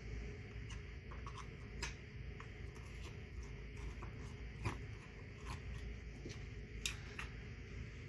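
Scattered small metallic clicks and taps as a screwdriver tightens the screw on the metal clamp holding a glass bowl on a 1949 McCulloch 1225A chainsaw, with hands handling the parts. The clicks are irregular, a few of them sharper than the rest, over a low steady hum.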